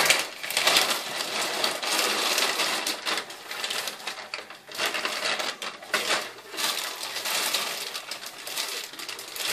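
Thin clear plastic bag crinkling and rustling as it is handled in the hands, an irregular run of crackles.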